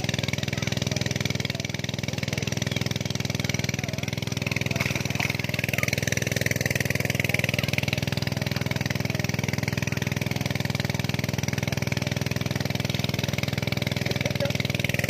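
An engine running steadily at a constant idle: an even, low hum that holds the same pitch throughout.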